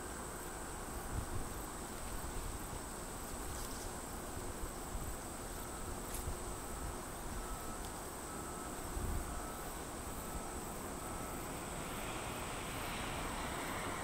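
Steady high chirring of insects in the grass, with wind gusting on the microphone. Near the end a broad rushing jet-engine sound builds as the Airbus A350-900's Rolls-Royce Trent XWB engines come nearer on the landing roll.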